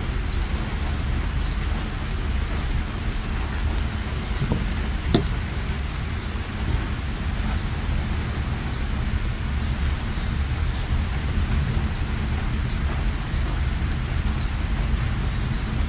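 Heavy rain falling steadily, with a constant low rumble underneath and scattered sharp clicks of single drops striking; one louder click about five seconds in.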